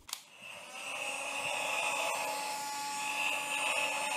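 Mattel Jetpack Buzz Lightyear toy's jetpack switched on by its button: a click, then a steady whirring that builds over the first second, from the small fan on its back that blows its ribbon flames.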